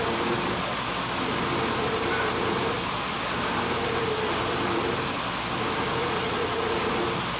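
Vertical milling machine running with its cutter milling the groove of a metal traverse shaft, fed by hand because the automatic feed is broken. A steady mechanical drone, with a short scraping hiss about every two seconds.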